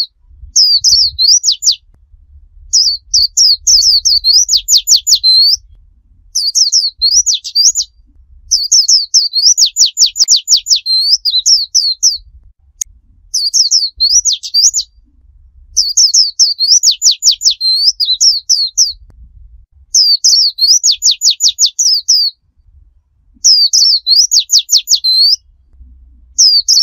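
Pleci (white-eye) singing its 'tembakan' song: bursts of fast, high, sweeping notes, each a second or two long and some longer. The bursts repeat about nine times, with short pauses between them.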